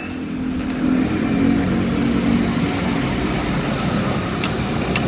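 Steady low rumble of a motor vehicle running close by. Near the end come two light metallic clicks as a screwdriver works inside the steering-rack housing.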